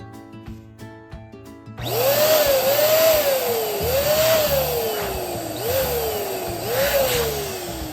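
Electric balloon pump blowing air, starting about two seconds in, with a whistling tone that repeatedly jumps up and slides slowly down as air rushes into the balloon. Background music plays underneath.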